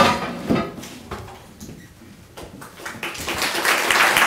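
A room audience starts applauding about three seconds in, the clapping building and carrying on, after the last word of a spoken introduction.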